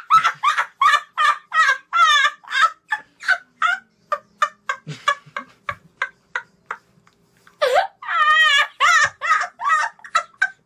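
A boy laughing hard in rapid, high-pitched bursts, about three a second, almost like gobbling. The laughter tails off in the middle, pauses briefly, then breaks out loudly again near the end.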